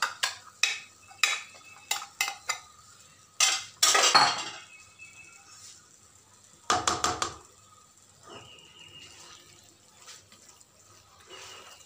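Kitchenware clinking and knocking against a nonstick frying pan: a quick run of light taps in the first two and a half seconds, and louder clatters about four and about seven seconds in. Softer stirring sounds follow as a plastic spatula mixes shredded cheese into pasta in the pan.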